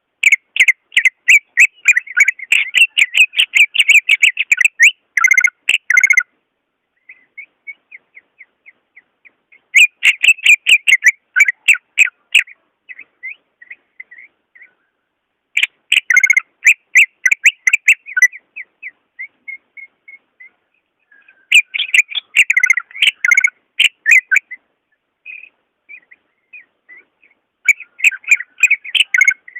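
Cucak ijo (green leafbird) singing: five bursts of rapid, loud chattering whistles a few seconds apart, with softer single notes between them.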